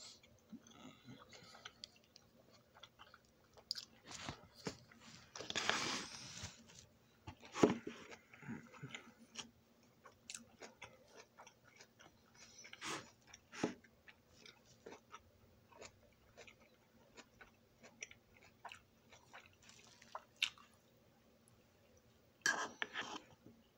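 A person chewing food close to the microphone: irregular small clicks and smacks of the mouth, with a longer, louder stretch of noise about six seconds in and a loud cluster of sounds near the end.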